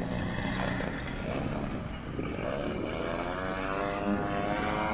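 Engine and propeller of a radio-controlled scale model airplane running, its pitch rising slowly through the second half.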